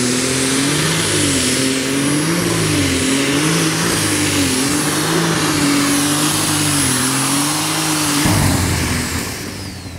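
Super stock pulling tractor's turbocharged diesel engine running hard at high revs, its pitch rising and falling again and again, with a steady high turbo whistle above it. A little past eight seconds the engine is cut and the level drops, while the whistle glides down.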